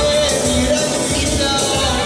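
Upbeat dance music with a steady beat and a singing voice.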